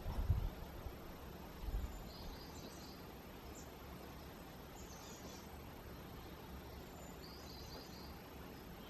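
Outdoor ambience: a steady background hiss with small birds giving short chirping trills every second or two. There are two low thumps in the first two seconds.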